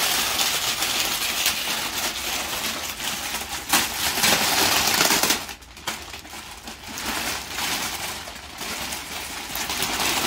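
Wrapping paper being torn and crinkled as a present is unwrapped: dense rustling and ripping with small clicks, loudest a few seconds in, breaking off briefly just past the middle, then starting again.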